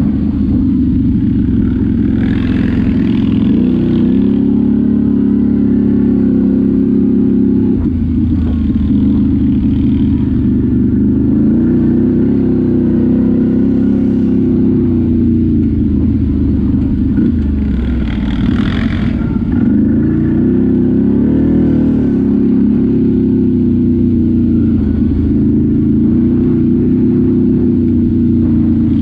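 ATV engine running under load as it is ridden, its pitch rising and falling as the throttle is opened and eased off. Two brief rushing noises come over it, a couple of seconds in and again about two-thirds through.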